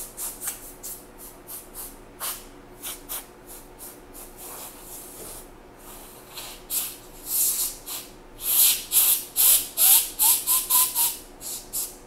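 Can of compressed-air dust remover sprayed through its straw into a laptop's cooling fan, in many short hissing puffs that come thick and fast in the last few seconds. A brief rising whistle sounds about ten seconds in.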